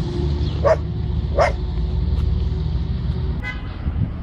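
Street dog barking twice, short sharp barks about three-quarters of a second apart, over a steady low rumble.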